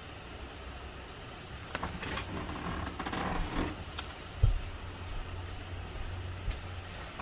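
Paper baseball cards sliding against each other as they are flipped through by hand. A single low thump comes about four and a half seconds in, followed by a steady low rumble.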